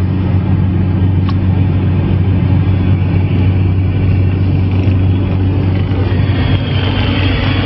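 Steady engine and road drone inside a car cabin at expressway speed. A faint thin high whistle comes in about six seconds in.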